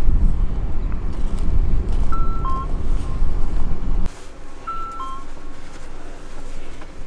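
Low rumble of wind buffeting the microphone, which cuts off sharply about four seconds in. Over it, a short two-note whistle, a higher note falling to a lower one, sounds twice.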